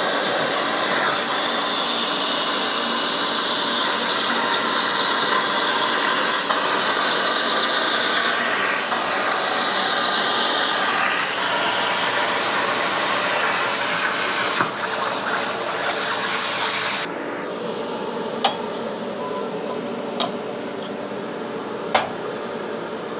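Everlast air plasma cutter firing on a Langmuir Crossfire Pro CNC plasma table, cutting steel plate: a loud, steady hissing rush that cuts off abruptly about three-quarters of the way through, as the cut ends. A fainter steady hum follows, broken by three sharp clicks.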